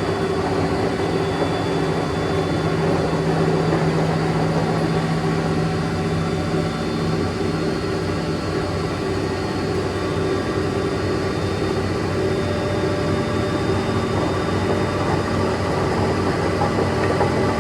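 Large coin-laundry washing machine on its spin cycle: a steady mechanical rumble with a low hum that holds throughout.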